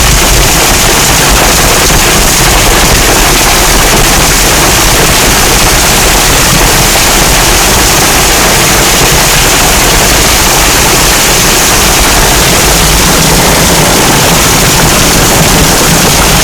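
Hailstones pelting a car's roof and windshield: a loud, dense, unbroken clatter of impacts.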